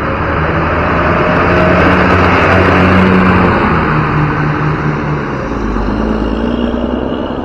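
A bus passing close by, its engine and road noise swelling to a peak about three seconds in and then easing off.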